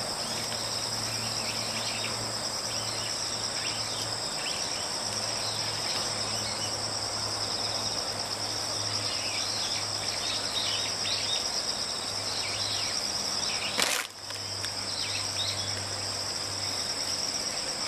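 Insects chirring steadily in a continuous high-pitched drone outdoors. About 14 seconds in there is one sharp click, followed by a brief dip in the sound.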